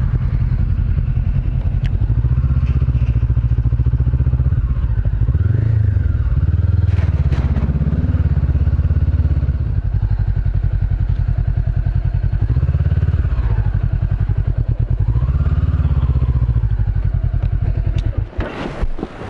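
Honda CB500X motorcycle's parallel-twin engine with a Staintune exhaust running at low speed, its note rising and falling with the throttle, then cutting off near the end.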